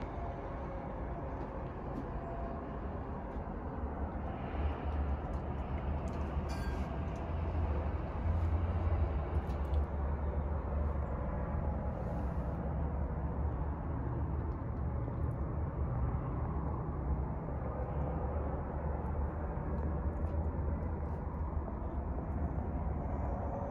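Steady low outdoor rumble of road traffic, with a few faint clicks about a third of the way in.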